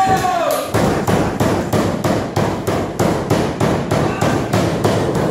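Rapid, even banging at about four sharp hits a second, keeping up a steady rhythm at ringside of a wrestling match.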